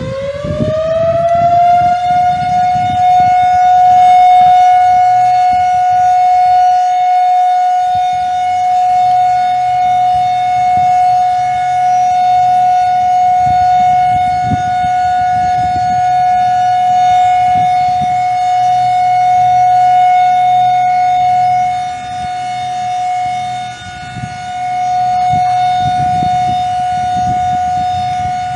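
Siren rising in pitch over the first two seconds, then holding one steady high tone and starting to fall right at the end. A low rumble runs underneath.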